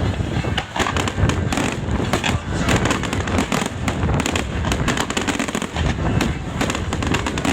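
Fireworks display going off without pause: many overlapping sharp bangs and pops over a continuous crackle and low rumble.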